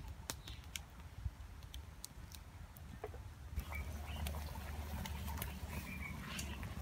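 Wood fire crackling under a wide pan of beef broth at a rolling boil. Sparse sharp snaps at first, turning to a denser crackle and bubbling about halfway through.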